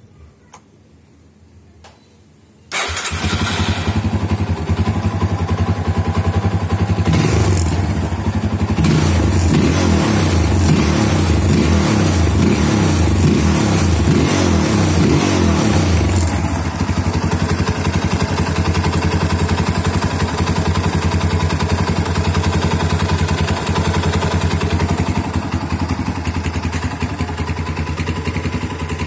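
Yamaha Scorpio motorcycle's single-cylinder four-stroke engine, fitted with a Keihin PWK 30 carburettor, starting up about three seconds in and running. It runs loudest until about halfway, then settles to a steady, slightly quieter idle.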